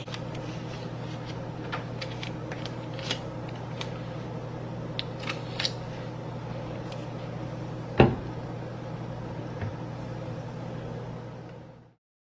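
Plastic juice bottles being handled and capped, giving light clicks and taps and one sharper knock about eight seconds in, over a steady low mechanical hum.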